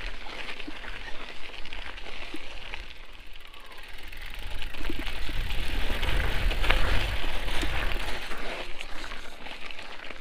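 Mountain bike rolling over a dirt and gravel trail: tyres crunching and small rattles and clicks from the bike, with wind rumbling on the microphone that grows louder about halfway through.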